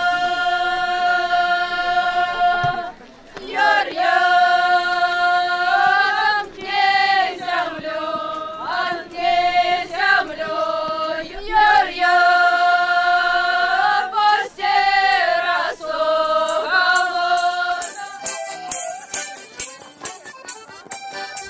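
A group of voices singing a Belarusian folk round-dance song for the spring St George's Day rite, in unison, with long held notes broken every second or two. About eighteen seconds in, the singing stops and quick rhythmic percussion strikes take over.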